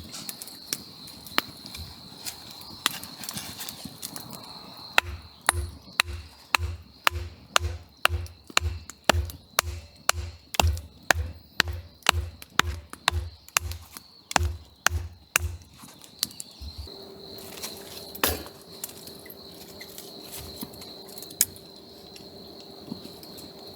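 Crickets chirring steadily, with a run of about two dozen evenly spaced chopping knocks, roughly two a second, through the middle.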